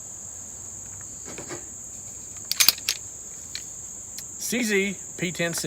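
Steady high-pitched chirring of crickets throughout, with a quick cluster of sharp clicks about two and a half seconds in and a man's voice briefly near the end.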